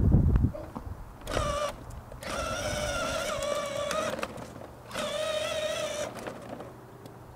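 Electric drive motor and gearbox of a battery-powered ride-on toy Jeep whining in three bursts, a short one then two longer ones, as the pedal is pressed and released. A loud low rumble comes right at the start.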